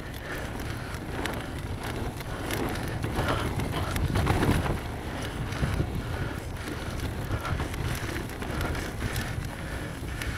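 Mountain bike rolling along a dirt trail: tyres rumbling over the dirt with frequent small rattles and clicks from the bike, and wind buffeting the microphone.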